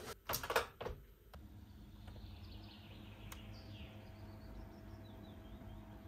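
Window blind being slid open with a short rattle in the first second, then faint birds chirping outside.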